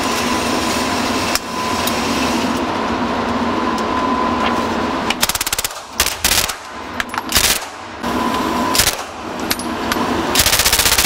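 Gunfire from a Lage Max-31 upper fed from a modified Sten magazine, in an indoor range. A steady background hum runs until a rapid burst of shots about five seconds in. Several single shots follow over the next few seconds, and another rapid burst comes near the end.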